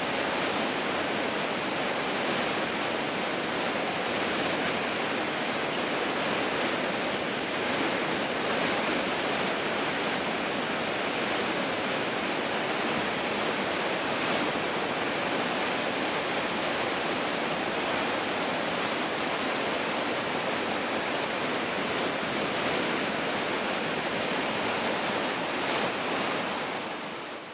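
River water pouring over a waterfall: a steady, even rush of falling water that fades out near the end.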